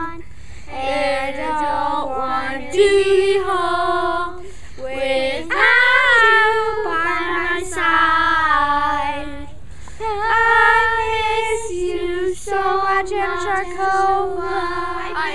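A small group of children singing a cappella: long held notes in one melody line, with brief pauses between phrases.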